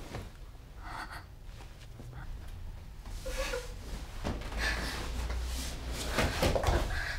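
Breathy gasps and whimpers, several short uneven breaths that grow louder toward the end, over a steady low rumbling drone.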